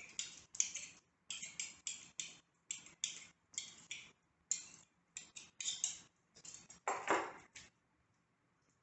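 Two knives clicking and scraping against each other and the sides of a ceramic mixing bowl in quick strokes, about two a second, as cold butter is cut into a flour mixture for biscuits. The strokes stop near the end.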